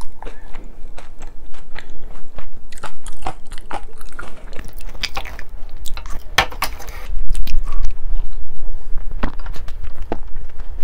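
Close-miked chewing of a spoonful of cheese rice, with many short sharp mouth clicks.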